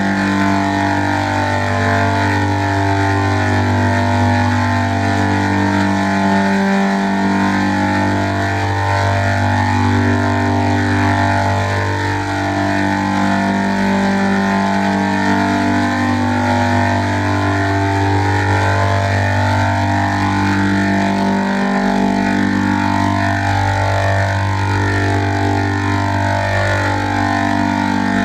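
Electronically processed audio with a 'G-Major 86' effect: a continuous drone of layered, chord-like tones that shift in pitch every second or two, over a steady low bass tone that changes twice.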